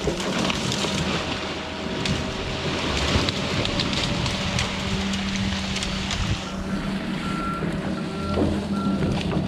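Excavator's diesel engine running steadily under load, with a dense rushing, crackling noise over it. About two-thirds of the way through the noise drops away and the excavator's reversing alarm begins beeping, about two beeps a second.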